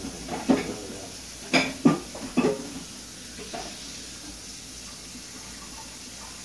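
Shiba Inu puppy's paws and claws scrabbling and knocking against a wooden lattice fence as it tries to climb it: a few short, sharp knocks in the first two and a half seconds.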